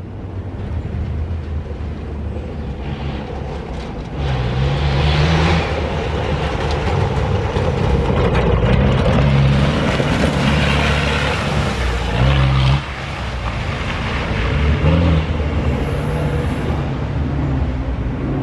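Engine of an off-road competition car revving hard under load as it drives close by through deep mud, the revs rising and falling as it fights for grip. It grows louder over the first few seconds and drops off briefly past the middle.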